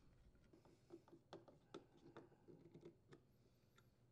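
Near silence with a handful of faint small clicks and ticks over about two seconds: a screw and the metal adjustment plate being handled and fastened onto a plastic edger gearbox housing.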